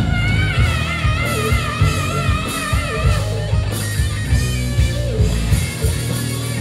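Live hard rock band playing: electric guitars, bass and drum kit. A high held note wobbles in wide vibrato over the band for the first three seconds, then the guitars carry on riffing.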